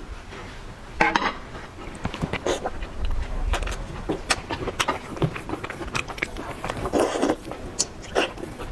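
Close-up eating sounds: shrimp being chewed, with irregular wet smacks, crackles and clicks. The loudest crunches come about a second in and again near the end.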